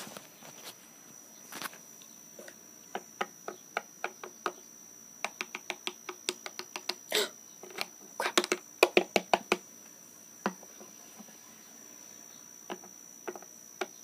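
Small plastic toys being handled and set down on a wooden tabletop: a string of sharp, irregular clicks and taps, busiest in the middle.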